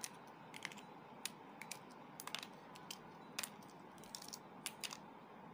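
Shell of a boiled balut (duck egg) being cracked and picked off by fingertips: about a dozen light, sharp clicks and crackles at irregular intervals.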